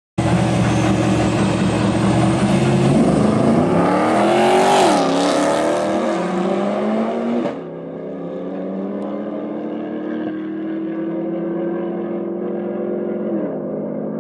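Street race launch between a Jeep and a Mitsubishi Lancer Evolution. The engines are held at high revs at first, then climb in pitch through two gear changes under full acceleration. About halfway through, the sound gives way to a steadier, quieter engine drone, which falls in pitch near the end as the car slows.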